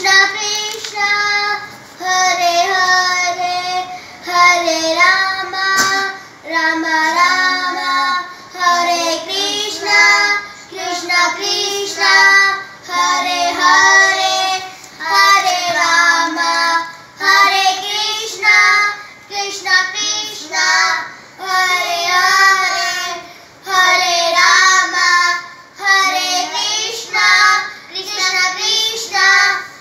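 Two young girls singing a Hindu devotional mantra together in a repeated chant, a new sung phrase about every two seconds.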